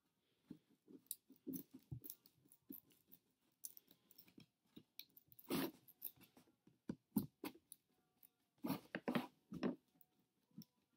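Butter knife digging and twisting into cardboard: an irregular run of faint crunching scrapes and pokes, with a few louder crunches about halfway through and near the end.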